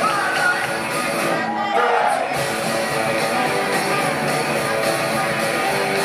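Rock band playing live: electric guitars, bass and drums with a singing voice, heard from the audience in a large hall.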